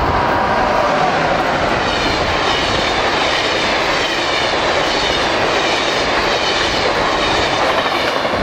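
Amtrak AEM-7 electric locomotive and its stainless-steel passenger cars passing close by at speed: a steady, loud rush of wheels on rail and moving air, with a faint high whine in the middle.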